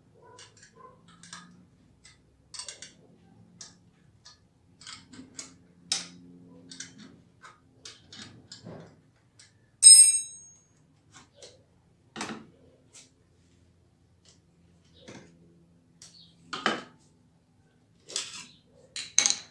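Metal clicks, taps and clinks from hands handling the mounting bracket and clamp of a detachable motorcycle exhaust silencer. One loud, ringing metallic clink about ten seconds in, and a few sharper knocks near the end as the silencer is grasped.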